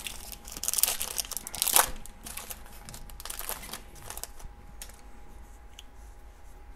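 Metallic foil wrapper of a 1986 Sportflics baseball card pack being torn open and crinkled, loudest in the first two seconds. Softer rustling follows as the cards are slid out of the wrapper.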